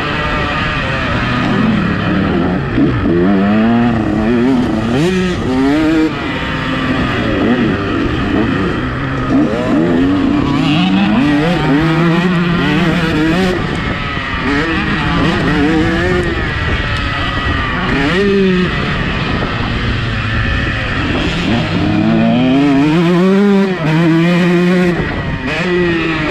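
Two-stroke motocross bike engine ridden hard on a dirt track, its pitch repeatedly rising under throttle and falling back as the rider shifts and closes the throttle for corners. Heard close up from a helmet camera.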